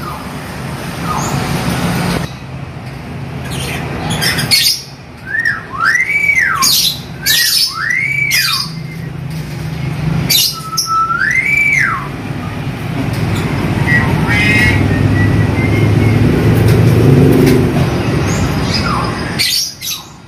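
Caged hill myna squawking and whistling, with about four loud whistles that rise and fall in pitch between about five and twelve seconds in. A steady low rumble sits underneath and grows louder in the second half.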